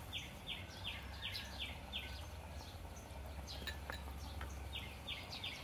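Chirping from a small animal outdoors: a short falling note repeated about three times a second, which fades out midway and starts again near the end, over a low steady hum.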